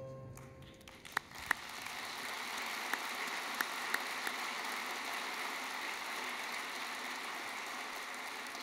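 The last music notes die away in the first second, then an audience applauds steadily, the clapping easing slightly near the end.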